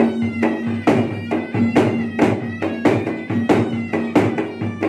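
Traditional gendang ensemble: two large laced double-headed drums struck by hand in a fast, closely spaced beat, under a shawm-like reed pipe playing a held, unbroken melody.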